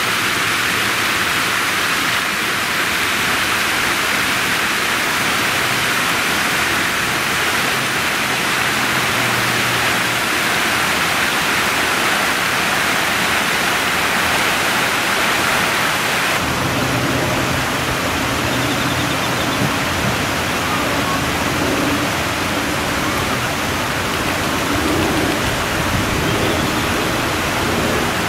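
Steady, loud rushing noise with no breaks; its tone shifts slightly about sixteen seconds in.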